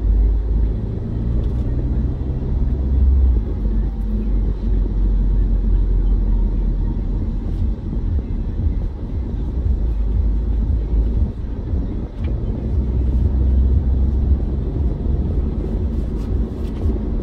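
Car cabin road and engine noise at highway speed: a steady low rumble of tyres and engine heard from inside the car.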